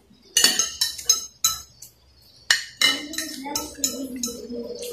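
Metal spoon and fork clinking and scraping against a clear glass plate: a quick, irregular run of sharp clinks. A low wavering hum comes in underneath about three seconds in.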